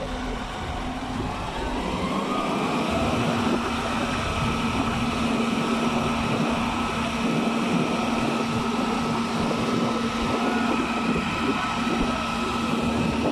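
Engine of heavy concrete-pumping machinery running steadily, with a whine that rises over the first two seconds and then holds a constant pitch.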